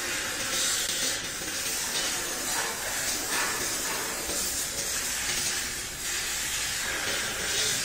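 Steady hiss with soft, irregular rubbing strokes of a cloth rag wiping around a cylinder bore of a cast-iron diesel engine block.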